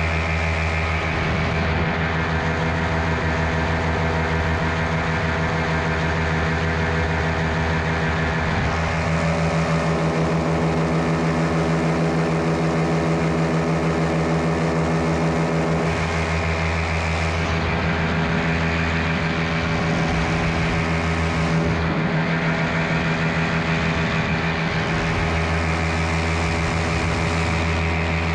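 Miniplane Top 80 paramotor's single-cylinder two-stroke engine and propeller running steadily in flight, its pitch shifting slightly several times as the throttle setting changes.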